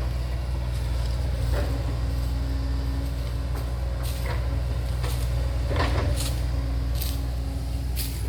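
Backhoe engine running steadily at a low rumble, with several short metallic knocks and clanks over it.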